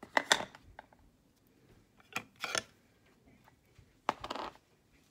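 Close handling noises from a pressed-powder makeup compact: three short bursts of plastic clicking and scraping as it is picked up and opened.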